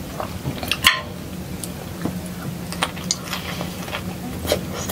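Close-up eating sounds: wet chewing and small mouth clicks as a soft-boiled egg and broccoli are eaten, with one sharper click about a second in.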